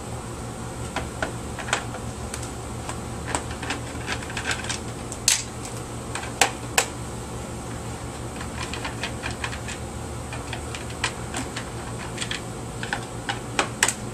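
Irregular clicks and light taps of a screwdriver and small plastic vacuum-cleaner parts being handled as screws are taken out, over a steady hum.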